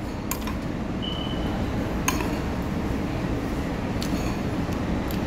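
A few light clinks of a metal spoon and fork against a noodle-soup bowl, over a steady low hum of room noise.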